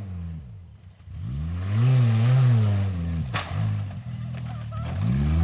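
Compact convertible SUV's engine revving up and down as it is driven off-road through brush. One sharp crack of impact comes a little over three seconds in, followed by a few lighter clicks.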